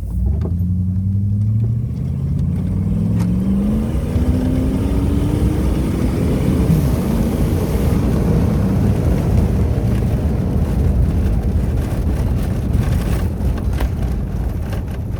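Jeep Grand Cherokee WJ's 4.7-litre PowerTech V8 accelerating, its note rising for about six seconds, then running hard as a loud, steady rumble.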